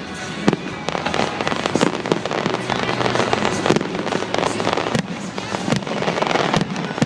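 Aerial fireworks display: shells bursting one after another, about one sharp report a second, over dense, continuous crackling from the bursts.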